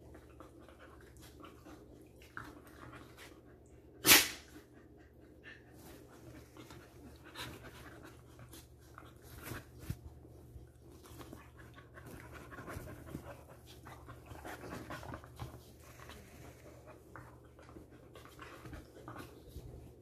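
Two dogs play-fighting, panting as one mouths the other's face, with one sudden, sharp, loud burst about four seconds in.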